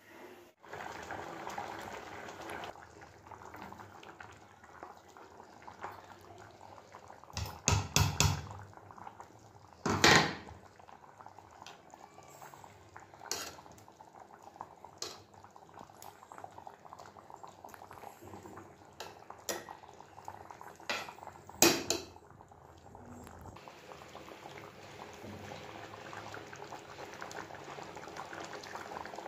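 Fish pulusu, a tamarind fish curry, simmering and bubbling in a pan. Through the middle a metal spoon scrapes and knocks against the pan about a dozen times, with the loudest knocks coming in two clusters. Near the end the steady bubbling goes on alone.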